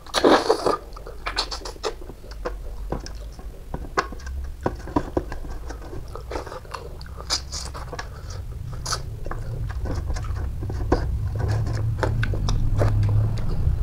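Close-up chewing of a handful of rice and boiled fish, with frequent short wet mouth clicks and a louder burst of mouth noise as the food goes in at the start.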